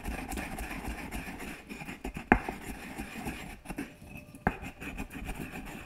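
Pestle grinding and knocking in a mortar: steady scraping with irregular knocks, two sharp ones a little over two seconds apart.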